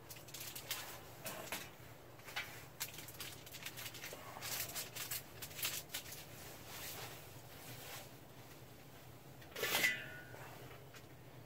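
Aluminium foil crinkling in short, faint rustles as a foil-wrapped pork butt is handled on a Weber kettle's grill grate, with one louder noise about ten seconds in as the kettle lid is taken up.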